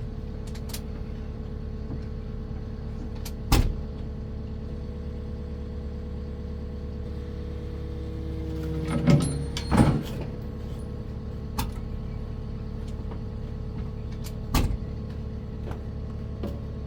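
Diesel engine of the loader carrying the mulcher head running steadily at idle, with a brief swell in its sound about halfway through. Three sharp metallic clunks, about 3.5, 10 and 14.5 seconds in.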